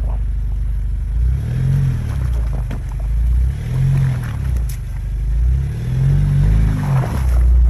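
Jeep Wrangler Rubicon's engine over a steady low rumble, revving up and easing off three times as it pushes the Jeep through slushy, icy creek water, with a few scattered scrapes and knocks.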